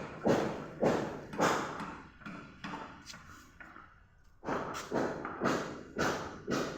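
Repeated heavy thuds at a steady pace of nearly two a second, each dying away quickly, with a break of about a second before the strikes resume.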